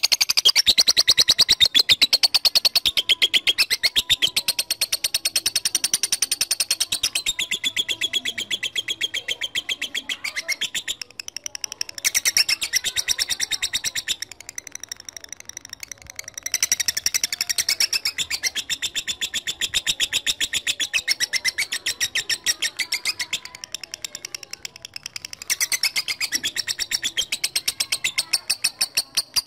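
Lovebird in long 'ngekek': a rapid, rattling chatter of shrill notes, many per second, running on with a few brief breaks.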